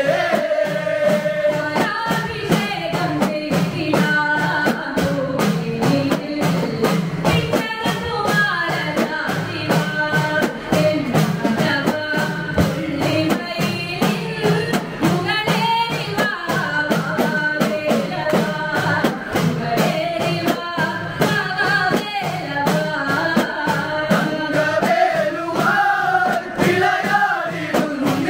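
Kavadi chindu devotional song: a woman and men singing together to a steady beat on small hourglass hand drums.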